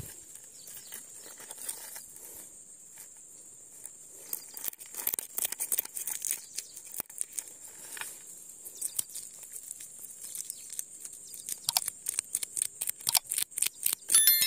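A knife scraping scales off a small fish on a wooden board: quick rasping strokes that start about four seconds in and come faster and louder toward the end. A steady high insect buzz runs underneath, and a short chiming sound effect plays near the end.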